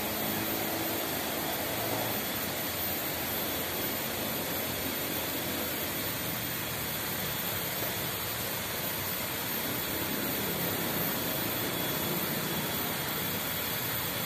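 Steady outdoor ambience: an even, wide rushing noise with no distinct events in it.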